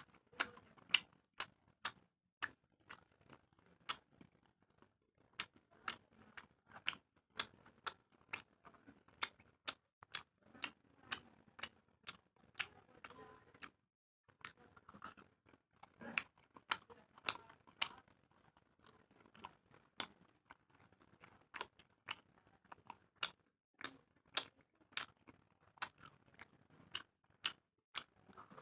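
A person chewing steamed chicken momos close to the microphone, with a steady run of sharp mouth smacks, about one to two a second, broken by a couple of brief pauses.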